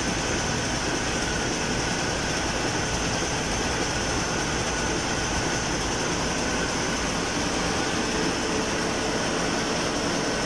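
Hanshin 1000 hp marine diesel main engine running steadily, heard inside the ship's engine room as a loud, even machinery din with a thin high whine over it.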